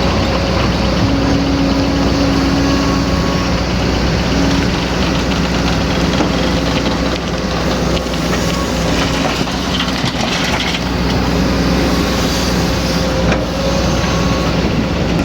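Excavator's diesel engine running steadily while it works, with a humming tone that comes and goes in stretches of a second or two, and a few faint knocks.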